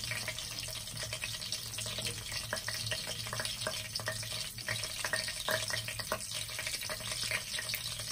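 Whole spices sizzling in hot oil in a frying pan: a steady hiss with frequent small irregular crackles, the spices starting to crackle as the oil comes up to heat.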